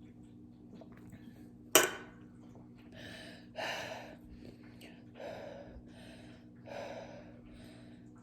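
A single sharp knock about two seconds in, then a person breathing out heavily four times after drinking sparkling water; no hiccup comes.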